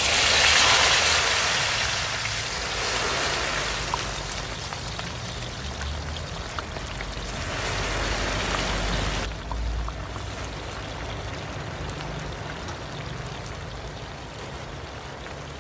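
Cut okra (bhindi) going into hot oil in an iron kadhai and deep-frying. A loud sizzle starts as the first handful drops in and swells again about eight seconds in as more okra is tipped in. It then settles to a steadier bubbling hiss.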